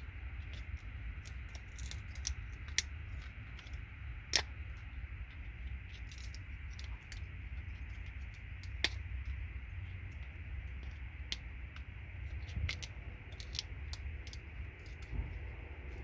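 Side cutters snipping gold-plated pins off the RJ45 connectors of a network patch panel: irregular sharp clicks and small metallic clinks, two louder snips about four and nine seconds in, over a steady low hum.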